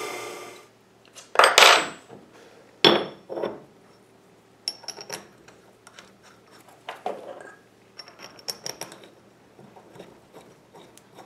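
Steel lathe-chuck back plate and 3-jaw chuck being handled and fitted together by hand: a series of sharp metal clinks and knocks, the loudest about one and a half and three seconds in. A milling machine's motor hum fades out in the first second.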